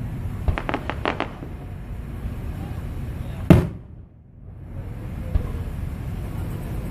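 Aerial fireworks going off: a quick run of sharp crackling cracks about half a second to a second in, then a single loud boom about three and a half seconds in.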